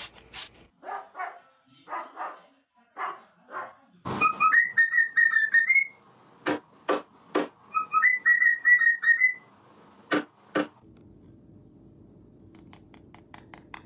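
Whistling in two quick runs of short notes, with short sharp bark-like calls between and after them.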